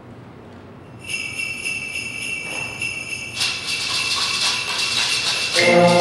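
Sleigh bells start shaking about a second in. More high shaking percussion joins about halfway and the sound grows louder. Near the end the full concert band comes in with brass and woodwinds, opening a Latin-flavoured sleigh-bell number.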